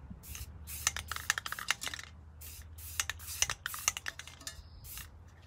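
Aerosol can of Rust-Oleum flat white spray paint hissing in many quick, short, irregular spurts as paint is sprayed onto a tumbler.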